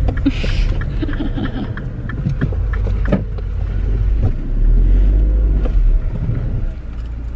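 Car engine and low road rumble heard from inside the cabin as the car is manoeuvred through a turn in the road. The rumble swells louder about two thirds of the way through.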